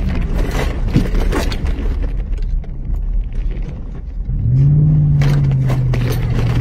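Chevrolet Silverado pickup driving on a dirt road, heard from inside the cab: a low engine and tyre rumble with scattered rattles and clicks. About four seconds in, the engine note rises and holds steady, louder.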